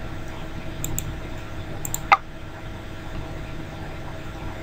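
Computer mouse clicks over a steady low hum: a couple of faint ticks about a second in, then one short, sharp click a little after two seconds.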